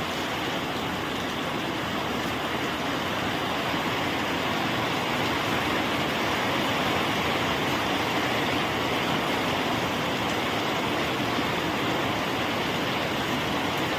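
Rain pattering steadily on a tin roof, a dense even drumming with no letup.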